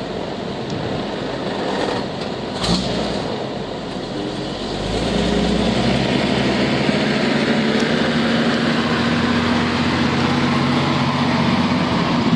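Antique fire engine's engine running as it drives past at parade pace, growing louder about five seconds in as it comes alongside and then holding steady. A brief thump sounds near three seconds in.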